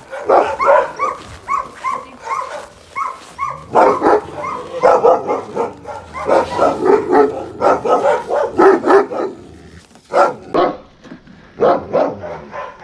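Dogs barking in quick runs of about three barks a second, thickening into denser overlapping barking midway, with a brief lull before a few more barks near the end.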